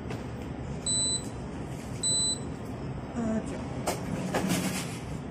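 Convenience-store card reader giving two short high-pitched electronic beeps about a second apart as an EasyCard transit card is topped up at the counter.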